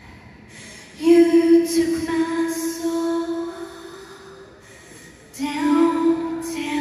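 A woman singing two long held notes into a microphone in a live band performance, the first starting about a second in and the second just past five seconds, with quiet instrumental backing between them.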